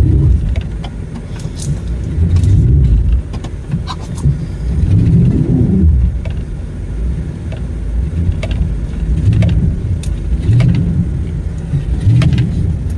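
Pickup truck engine revving up and dropping back again and again as the truck tries to pull off ice under its tires, with scattered sharp clicks and knocks.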